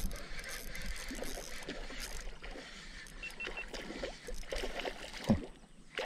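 A hooked ocellated snakehead splashing at the water's surface while a spinning reel is cranked in against it, with water lapping around the small boat. A brief low thump about five seconds in.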